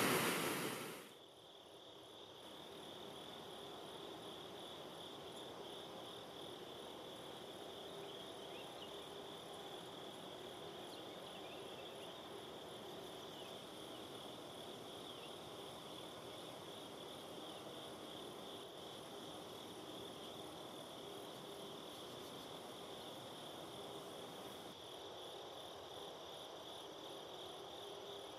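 Rushing river water cuts off about a second in. It gives way to a quiet, steady chorus of insects chirring at a high, even pitch, with a few faint short chirps over it.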